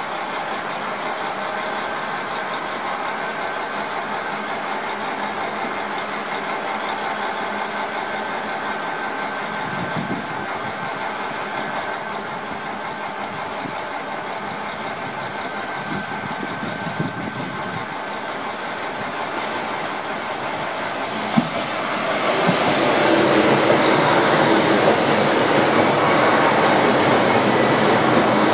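JR Hokkaido 261 series diesel multiple unit running in on the approach, its engines and wheels a steady sound that grows markedly louder about two-thirds of the way in as the cars draw alongside the platform.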